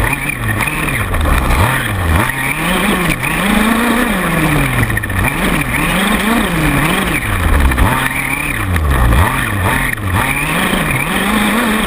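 Small two-stroke engine of a 1/5-scale gas RC buggy, heard close up from on board, revving up and down over and over as the car is driven hard around a dirt track.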